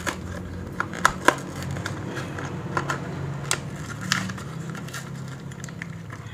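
Cardboard backing card and plastic blister of a die-cast toy car package being torn and peeled open by hand: irregular tearing and crinkling with a few sharp snaps, the loudest just after a second in.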